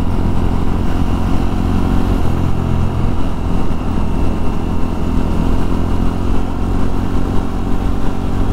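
Single-cylinder Jawa 42 motorcycle engine running steadily while riding, with a low rumble beneath it; the engine pitch shifts slightly about two to three seconds in.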